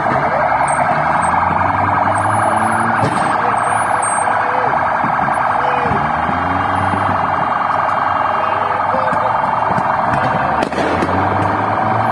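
Police car sirens sounding continuously, a dense, fast-warbling wail that holds steady throughout.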